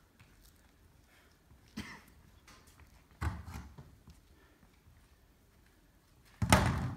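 A few knocks and thumps: a soft one about two seconds in, a stronger one about three seconds in, then a loud thump near the end as a plastic milk crate is set down on the stage floor.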